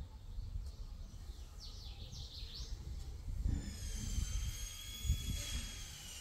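Outdoor ambience with a steady low rumble and a few quick bird chirps about two seconds in. From about halfway a steady high whine of several tones comes in, drifting slowly lower.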